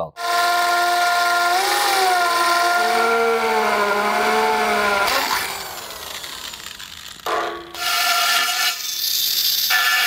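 Power drill and die grinder working on a cast aluminum wheel to open up and grind out a crack. A steady motor whine runs for about five seconds, sagging in pitch under load near two seconds in. After a quieter stretch come several short, high-pitched runs of the die grinder near the end.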